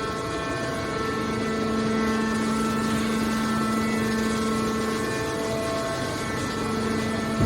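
Hydraulic metal baler's power unit running with a steady droning hum.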